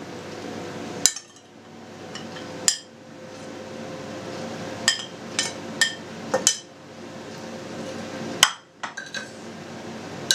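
Metal spoon clinking and knocking against a ceramic plate and clay pots as pieces of fried pork are spooned in: about a dozen sharp, irregularly spaced clinks over a steady low hum.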